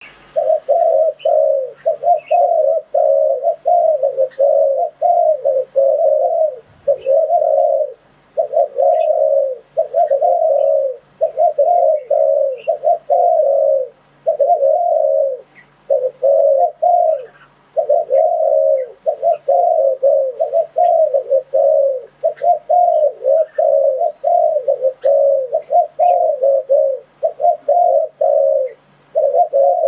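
Spotted dove cooing over and over. Its low coo notes come about two a second in phrases broken by short pauses.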